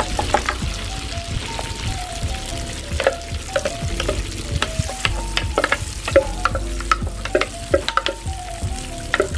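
Hot oil in a clay pot sizzling and crackling hard, with many sharp pops, as spoonfuls of a wet paste are dropped in and fry.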